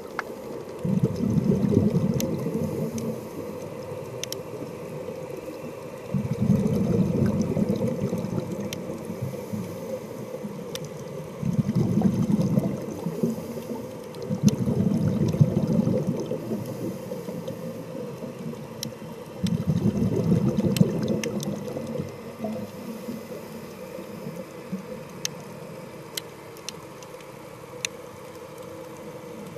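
Scuba diver's exhaled breath bubbling out of the regulator, heard through an underwater camera housing as a low rushing gurgle. It comes in about five bursts a few seconds apart, one per breath, then goes quieter for the last several seconds, with faint scattered clicks in the background.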